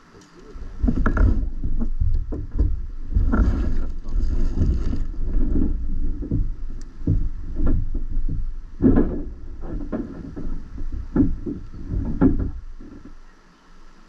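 A small boat running a waterfall: heavy rushing and buffeting with irregular knocks and bumps of the hull. It starts about half a second in and dies away shortly before the end.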